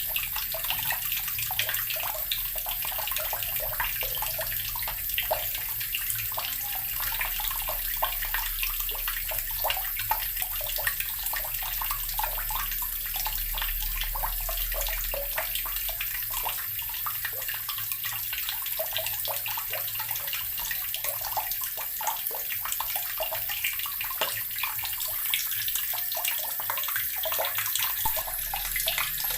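Water running steadily from a tap, splashing continuously into water below like a filling tub or sink.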